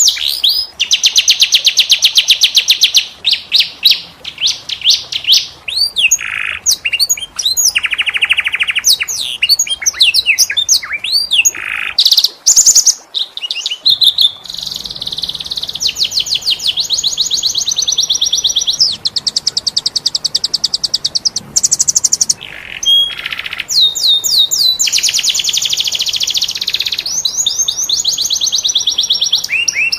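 Domestic canary singing a long, varied song: fast rolling trills of rapidly repeated notes alternating with phrases of quick high sweeping chirps, changing phrase every few seconds.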